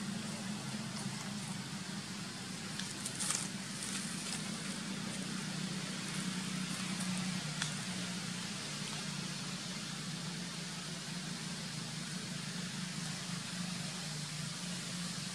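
A steady low hum under an even hiss, with a few faint crackles about three seconds in and again near the middle; no monkey calls.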